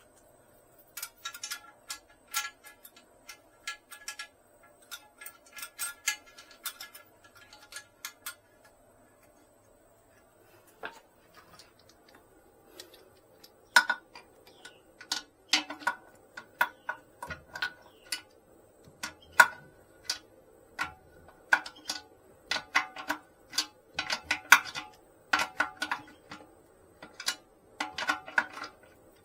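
Runs of quick metallic clicks and clinks, each ringing briefly: a wrench working the nuts and washers onto the tank-to-bowl bolts of a toilet. The clicking comes in two spells, a gap of a few seconds between them, the second busier and louder.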